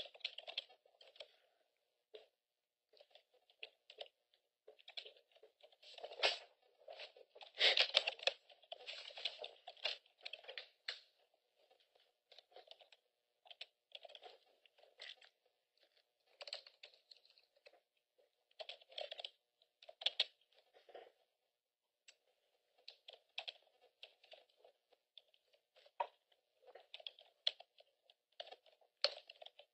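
Faint typing on a computer keyboard, coming in irregular bursts of clicks with short pauses between them.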